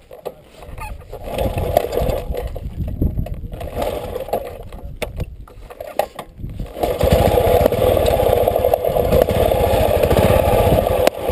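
Old motorbike's engine running with an even firing beat, then opened up about seven seconds in and running louder from there on.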